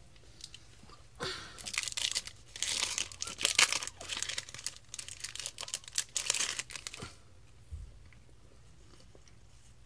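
Foil wrapper of a Yu-Gi-Oh booster pack being torn open and crinkled by hand: a run of crackly tearing and crumpling from about a second in to about seven seconds in, then quiet.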